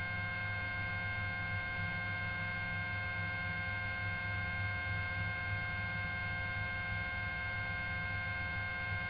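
Steady electrical hum with several thin, constant whining tones on the helicopter's radio and intercom audio feed while no one is transmitting.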